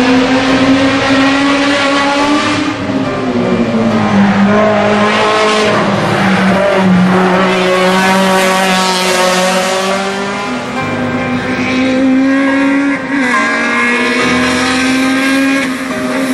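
Race car engines running at high revs, the engine note stepping down and climbing back up several times as the cars lap the circuit.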